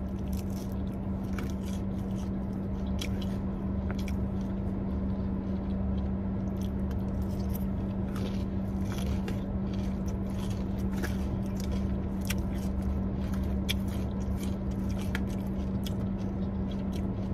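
Close-up chewing and biting of breaded fried food, with scattered soft crunches, over a steady low hum.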